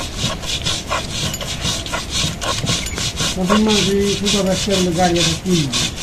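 Soaked lentils being ground to paste by hand, a roller rubbing back and forth over a wooden grinding board in quick, rhythmic rasping strokes. A low, wavering vocal sound runs through the middle.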